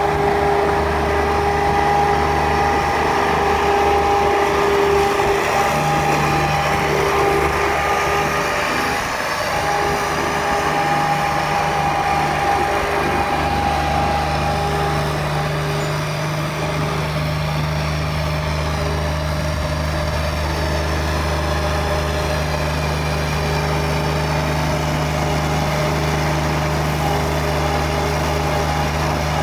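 Bobcat 463 skid-steer loader's small diesel engine running steadily as the machine drives a bucketful of gravel, its note shifting slightly now and then.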